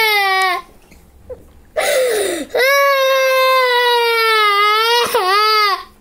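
A young child crying loudly in long, high wails: one breaks off about half a second in, then after a gasping pause comes a long wail and a shorter one near the end. The crying is distress while a seat-belt part stuck on his finger is cut off.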